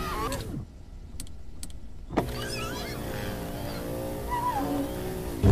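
Car power window motor running steadily as the side window glass rises, then cutting off suddenly near the end.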